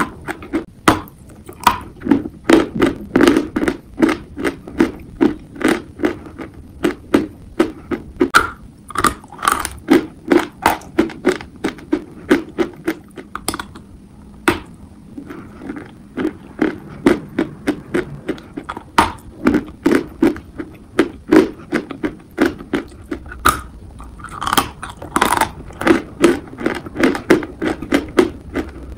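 Close-miked crunching of a block of dry chalk coated in paste being bitten and chewed: a dense run of sharp, gritty crunches about two to three a second, with a short lull about halfway.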